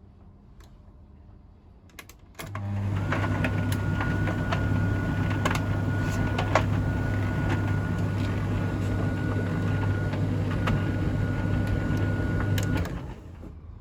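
Beko DCU 7230 condenser tumble dryer's motor running with a steady electric hum and a thin high whine, with irregular light clicks and ticks over it; it starts about two and a half seconds in and cuts off about a second before the end.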